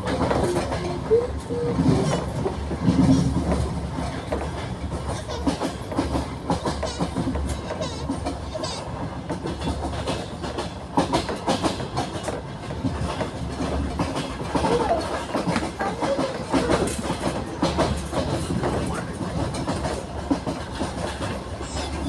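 Passenger train running at speed, heard from inside the carriage: a steady rumble of wheels on the rails with irregular clicks and knocks.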